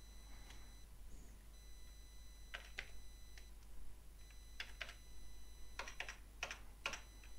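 Computer keyboard keys being struck while the year 2012 is typed: a few faint, irregularly spaced key clicks in the second half.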